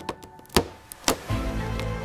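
Two sharp knocks, about half a second and a second in, over steady music-like tones; a low steady rumble comes in at about 1.3 s.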